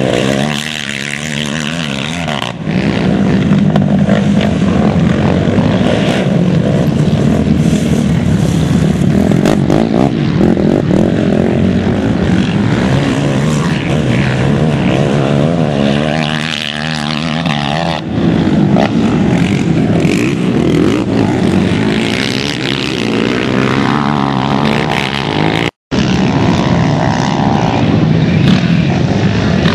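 Racing quad (ATV) engines revving hard and backing off as they go round a motocross track, the pitch rising and falling again and again, with more than one engine overlapping. The audio cuts out for an instant near the end.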